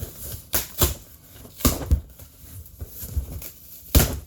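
A cardboard case being cut open and handled: a handful of sharp scrapes and knocks, the loudest near the end.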